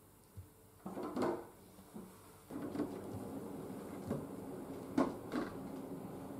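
Cat flap swinging and clacking in its frame as a cat pushes through it, about a second in. A few light knocks follow later.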